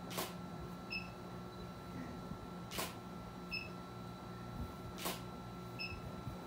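Camera shutter firing three times, roughly every two and a half seconds, each click followed shortly by a short high beep, over a steady low electrical hum.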